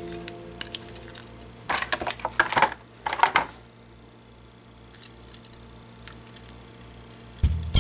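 Handling noises: a few sharp clicks and short rustles, as of packaging and a model being moved about, in the first half, then a quiet stretch. Music with guitar and bass comes in near the end.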